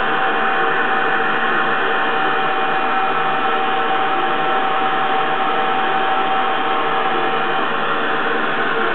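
Steady whir of a running machine: an even rushing noise with a faint constant hum, unchanging throughout.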